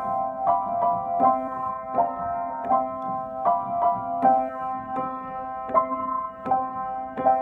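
Upright piano played as a four-hands duet: a simple tune of evenly paced notes, about three a second, over a steadily held lower note.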